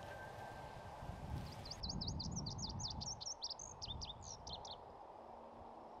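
A songbird singing a rapid, jumbled run of quick high notes, starting about two seconds in and stopping just before five seconds, over a low background rumble.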